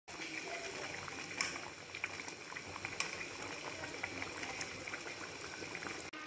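Rice boiling in chicken stock in a pot: a steady bubbling with scattered small pops as the liquid cooks down.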